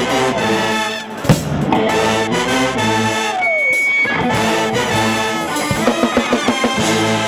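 Student pep band playing loudly: trumpets, trombones and saxophones over drum kit and electric guitar, with a downward brass slide a little past three seconds in and a run of sharp drum hits near the end.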